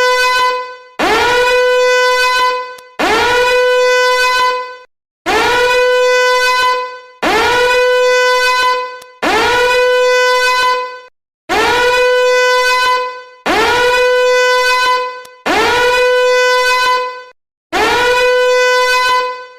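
Danger alarm sounding in repeated long blasts, about one every two seconds. Each blast slides up in pitch at the start, then holds a steady, harsh tone before fading.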